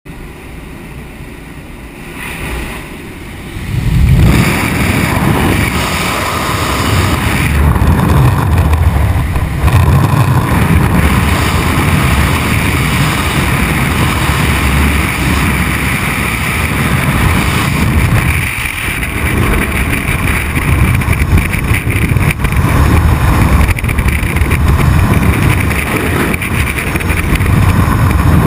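Wind blasting across a helmet camera's microphone during a skydive. After about four seconds of quieter aircraft cabin noise at the open door, it turns into loud, rushing, low buffeting that carries on through the exit into freefall.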